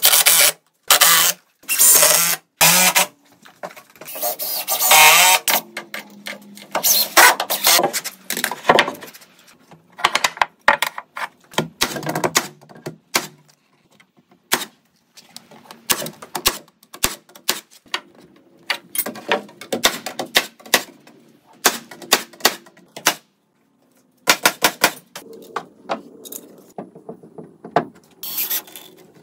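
Carpentry tool work in short bursts: a Makita cordless impact driver spinning and rattling as it drives screws into framing lumber, and shots from a SENCO cordless nailer, with many sharp clicks and knocks between them.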